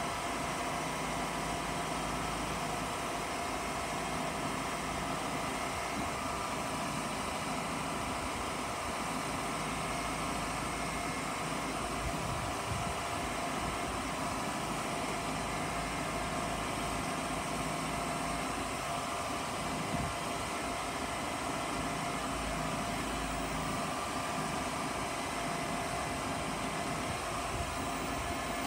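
Sandvik DT820 drilling jumbo running steadily while its hydraulic booms are moved, a constant machine hum with a few steady whining tones over it.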